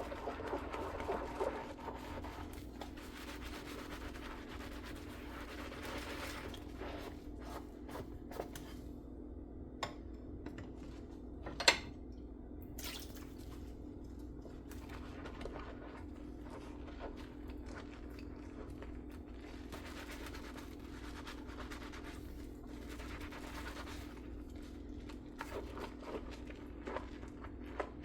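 Dishes being hand-washed at a sink: scrubbing and light scraping in the first several seconds, then scattered clinks and knocks of dishes and a few drips, with one sharp clink a little before the middle, over a steady low hum.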